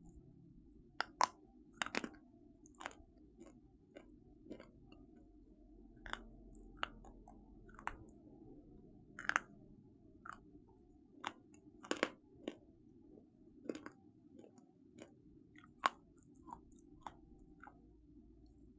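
A person chewing crunchy food close to the microphone: irregular sharp crunches, one or two a second, over a faint low hum.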